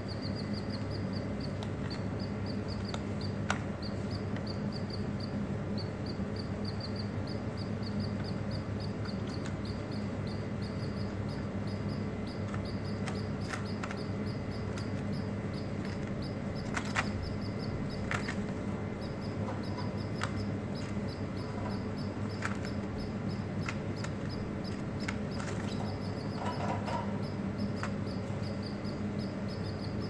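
Pet canaries pecking and hopping on newspaper in a wire cage, with a few sharp taps. Under this runs a steady low hum and a rapid high chirping, several chirps a second, that never stops.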